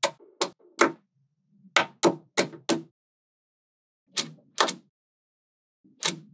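Small metal magnetic balls snapping together as a strip of them is pressed onto a magnetic-ball block: about ten sharp clicks in irregular groups, with short silences between.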